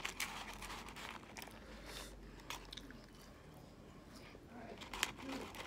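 Close-up mouth sounds of biting and chewing McDonald's French fries, with a sharp click about five seconds in.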